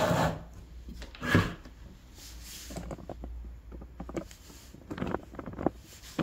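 Handling noises from the duct fans being moved and set down: a knock about a second in, scraping, then a cluster of clicks and knocks and a sharp knock near the end, over a low steady background hum.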